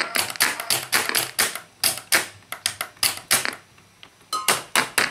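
Irregular clicks and crackles, a few each second, from a 1963 Geloso G257 reel-to-reel tape recorder running under test with tape threaded, with a brief lull a little before the end.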